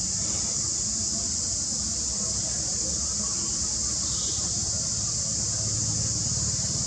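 Steady high-pitched drone of insects over a low background rumble, with a brief faint high sound about four seconds in.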